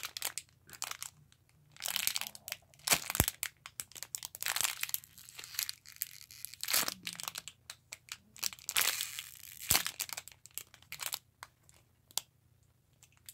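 Clear plastic packaging bag crinkling and crackling in irregular bursts as hands squeeze a foam squishy through it; it dies away near the end.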